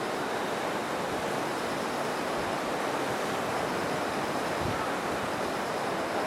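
Steady rushing of a river in flood, its water overflowing its banks: an even, unbroken noise with no distinct events.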